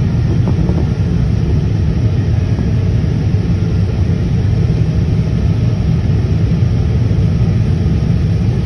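Boeing airliner landing: a steady low rumble with an even hiss above it, unchanging throughout.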